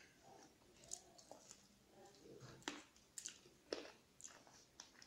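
Quiet eating-by-hand sounds: fingers mixing rice and chicken curry on a steel plate, with chewing and a scattering of sharp clicks and smacks, the loudest a little past halfway.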